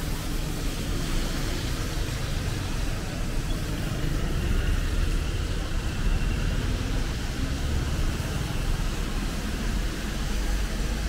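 Steady rainy street ambience: a continuous hiss of rain over a low rumble of road traffic, which swells slightly around the middle.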